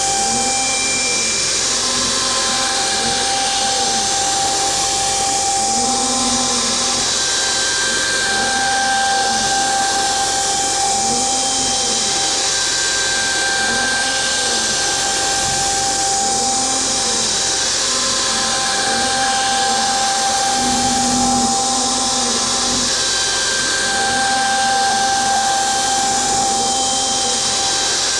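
DIY CNC router running a milling job: a steady spindle whine and hiss, with the axis motors' hum rising and falling about every two seconds as the machine moves back and forth across the work.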